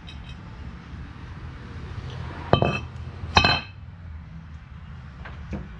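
Two sharp metallic clinks about a second apart, each with a short ring, as metal car parts or tools are handled and set down.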